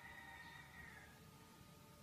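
Near silence: a pause between a leafbird's calls, with only a faint, soft held note in the first second.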